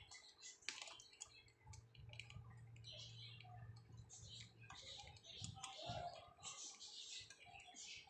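Budgerigar chicks nibbling and tearing at fresh leafy greens: faint, irregular soft clicks and crackles of beaks on leaves and stems, with a light rustle. A low hum comes in for a few seconds in the middle.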